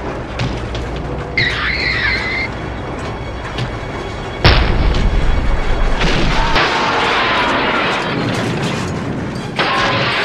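Action-scene sound design over dramatic music: a low vehicle rumble, a brief high screech about a second and a half in, then a sudden loud boom about four and a half seconds in followed by several seconds of dense rushing noise, with another loud swell near the end.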